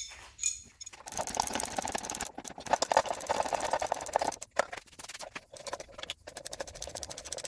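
Ratchet socket wrench clicking rapidly as a nut is turned, in several runs broken by short pauses.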